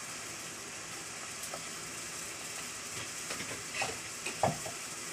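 Pot of water heating on the stove with a steady hiss, small pops and ticks coming more often in the second half as it nears the boil, and a sharper click near the end.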